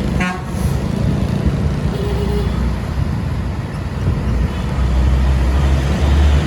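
Motor vehicle running on the road: a steady low engine rumble with road noise, growing louder about five seconds in. A brief pitched tone sounds just after the start.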